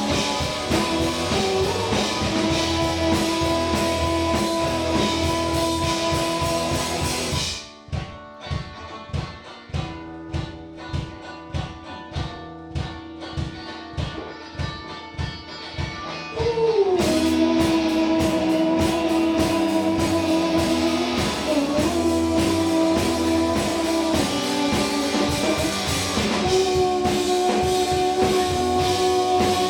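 Live indie rock band playing: electric guitars and drums with long held melody lines. About seven seconds in the band drops out to a sparse, evenly pulsing beat under a single held note, then the full band crashes back in around the middle and plays on.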